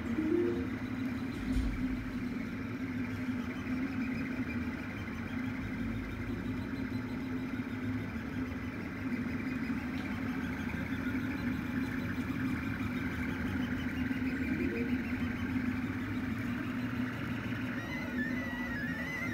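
HE3D K280 delta 3D printer running a print: a steady mechanical hum from its stepper motors and cooling fan. Near the end, a warbling whine starts, rising and falling in pitch.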